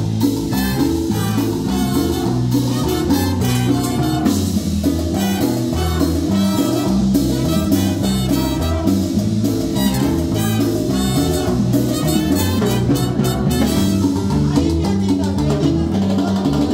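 Live Latin dance band playing with a steady beat and hand drums, and women singing into microphones.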